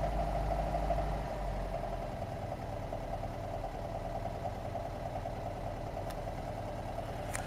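1989 Talbot Express 2-litre petrol engine idling steadily, with a slight knocking at tickover: an engine knock of unknown cause that the owner says is worse under light load.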